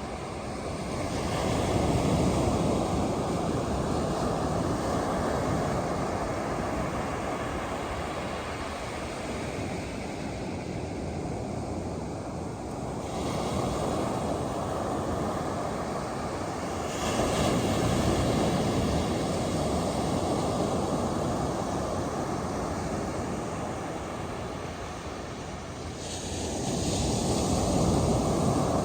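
Ocean surf breaking on a beach: a continuous wash of noise that swells as each wave breaks, about four surges.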